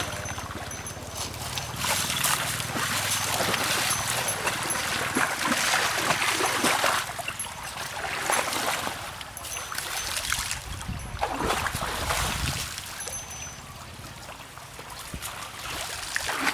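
Water splashing and trickling in irregular surges as cattle are washed.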